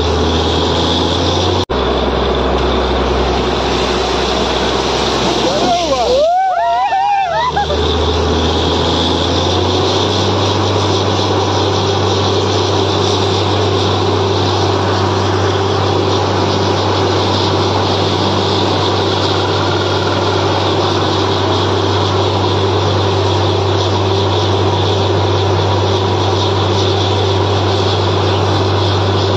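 A borewell drilling rig runs with a loud, steady low drone under a constant rushing hiss of water and air blowing out of the bore, the sign that the drilling has struck water. About six seconds in, a short wavering pitched call rises over it.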